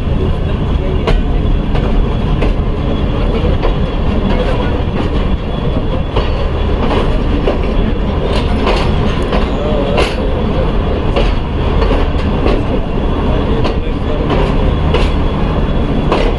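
Passenger train coaches rolling into a station, heard from on board: a steady rumble of wheels on the rails with irregular clacks about once a second.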